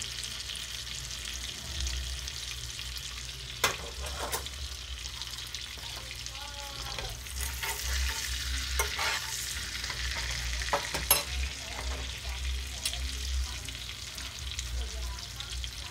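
Ribeye steak sizzling steadily in hot butter and oil in a cast iron skillet on high heat while it is basted. A few sharp clicks come from the spoon and tongs knocking the pan.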